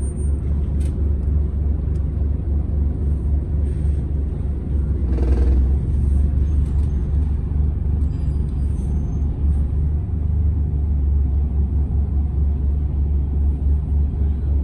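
Cabin noise of a Volvo B5TL double-decker bus on the move: a steady low drone from its four-cylinder diesel engine with road rumble. A brief hiss comes about five seconds in.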